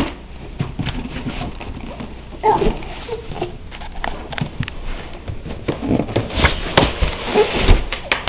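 Styrofoam packing sheet scraping and knocking against the cardboard box as it is pried loose and lifted out, with cardboard flaps rustling; the handling grows busier and louder about two seconds from the end.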